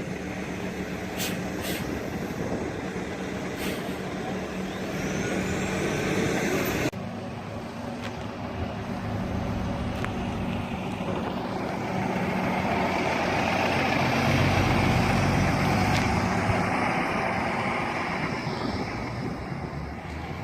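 New Flyer DE42LF diesel-electric hybrid city bus running, a steady engine hum with a few sharp clicks in the first few seconds. After an abrupt cut, the bus noise swells over several seconds and then fades.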